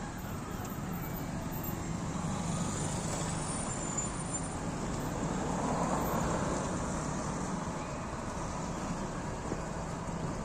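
Steady background road traffic noise, with a vehicle passing and swelling louder about halfway through.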